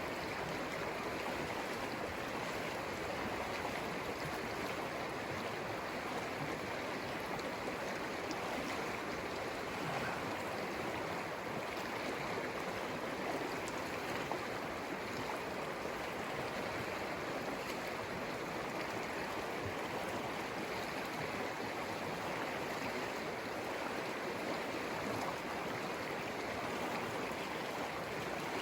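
The Conejos River flowing: a steady, even rush of running water that holds unchanged throughout.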